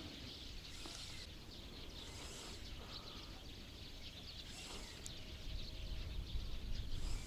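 Quiet outdoor background with wind on the microphone; a low wind rumble grows louder near the end.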